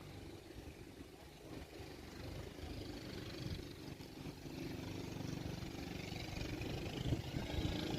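An engine running steadily, growing louder from a few seconds in.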